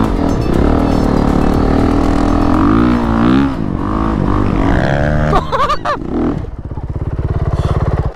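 Honda CRF450RX single-cylinder four-stroke dirt bike engine revving up and down under throttle in sand. About six and a half seconds in it settles to a steady low chug.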